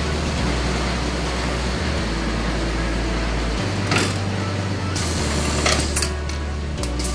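Vacuum tobacco tray seeder running: a steady rushing of its air blower and suction, with a few sharp mechanical clicks about four seconds in and again between five and seven seconds.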